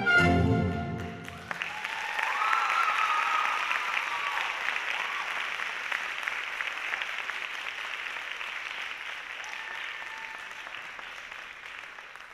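Orchestral ballet music ends on a final chord about a second in, then the audience applauds. The applause fades away near the end.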